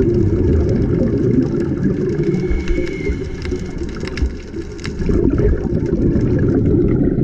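Underwater sound picked up by a GoPro in its waterproof housing: a loud, dense low rumble of water moving around the camera, with scattered sharp clicks and crackles.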